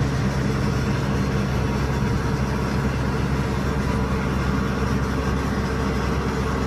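Heavy logging machine's engine running steadily at an even pitch, with no revving.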